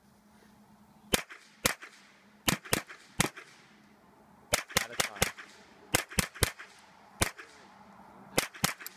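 Gunshots on a shooting range: about sixteen sharp cracks fired in quick runs of one to four, each with a short echo.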